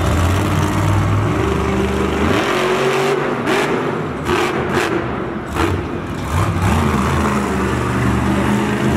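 Monster truck's supercharged V8 engine revving hard, its pitch climbing about two seconds in, then easing off with several sharp cracks before coming back on near the end.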